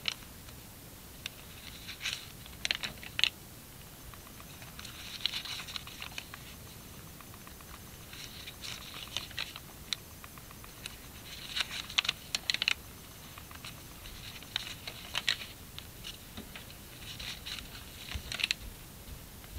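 Thin Tomoe River paper pages of a Hobonichi Techo journal being turned one after another, each turn a short crackly rustle, about every two to three seconds.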